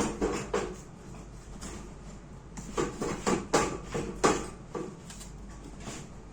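Handling noise: a string of light knocks and clicks as hard objects are handled and set down. A few come near the start, then a cluster about three to four seconds in.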